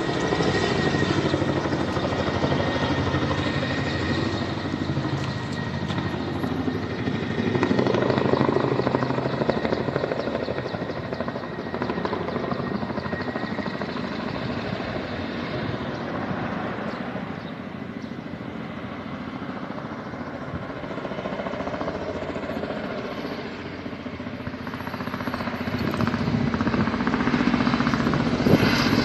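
Helicopter flying nearby, its rotor and engine droning steadily, louder near the start and again near the end.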